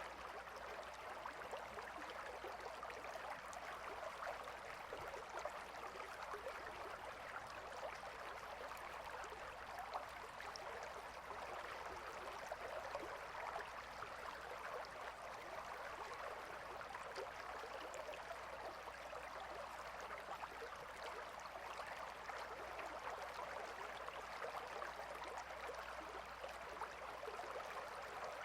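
Gentle river flowing: a steady, soft rush of water without pauses.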